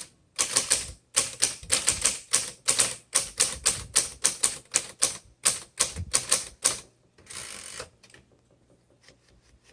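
1968 Smith Corona Super Sterling manual typewriter being typed on, a run of sharp key strikes at about four a second. About seven seconds in comes a brief scraping sound just under a second long, then only a few faint ticks.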